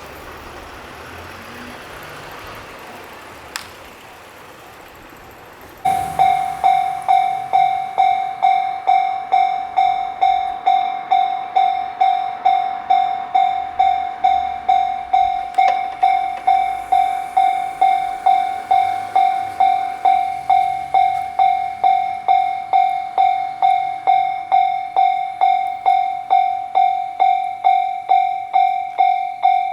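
Japanese railroad level-crossing warning bell starting about six seconds in and ringing its kan-kan alarm at a slow, steady pace of about two strikes a second. Each strike is a single pitched tone that decays quickly.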